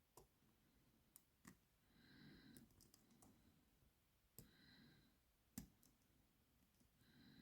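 Very faint, sparse clicks of lock-picking tools working in a padlock, over slow breathing that swells about every two and a half seconds.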